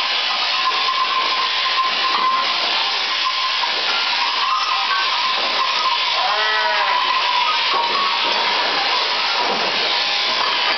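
A sheep bleats once, about six seconds in, over the steady hiss and whine of a running sheep-shearing machine.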